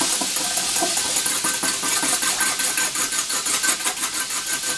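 Wire whisk beating a liquid sauce in a ceramic bowl, with rapid, even clinking strokes of metal on the bowl. Behind it, the steady hiss of chicken deep-frying in hot oil in a wok.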